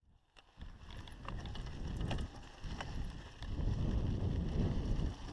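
Mountain bike riding over a dirt trail, heard from a bike-mounted camera: wind buffeting the microphone under scattered clicks and rattles from the bike over bumps. The sound starts abruptly.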